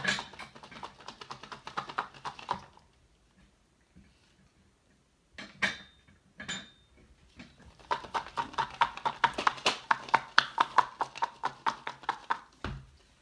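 Electronic Hatchimals toy egg tapping from inside its shell: runs of rapid, even pecking clicks, the sign that the toy is trying to hatch. There are two short high chirps in a quiet pause between the runs.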